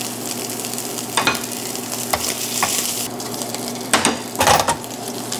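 Cubed guanciale sizzling in a stainless steel frying pan over a low gas flame as its fat renders, with a few sharp pops. The sizzle thins about three seconds in, and a few knocks follow near the end.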